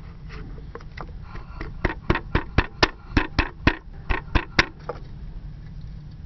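Thin aluminium drink cans clicking and crackling as one can's open end is pressed and worked over another to stretch it wider: a quick run of sharp clicks, about four a second, starting about two seconds in and stopping just before five seconds in.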